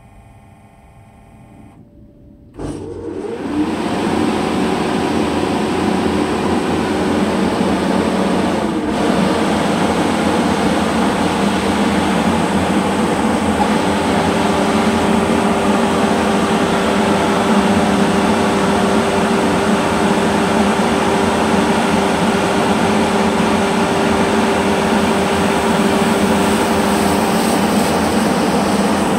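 TDM-M04 dust-control mist cannon starting up: its large fan cuts in suddenly about two and a half seconds in and then runs loud and steady with an airy rush, blowing out a fine water mist. A steady hum joins in about halfway through.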